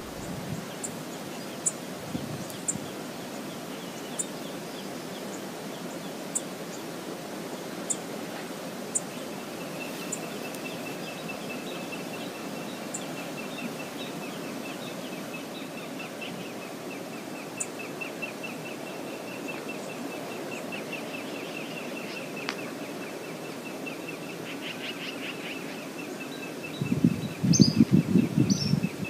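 Outdoor river ambience: a steady rush of water and wind with faint sharp high ticks. From about a third of the way in, a long, rapid, high trill goes on. Near the end, a loud low rumbling burst of noise lasts about two seconds, with a few short high chirps over it.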